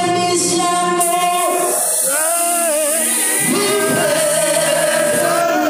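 Gospel singing: a solo voice holding long notes into a microphone, sliding and bending in pitch, over sustained backing music.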